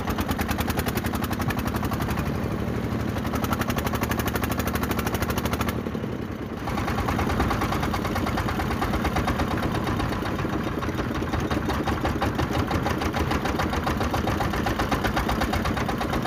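A fishing boat's inboard engine running steadily with a fast, even chugging, dipping briefly about six seconds in.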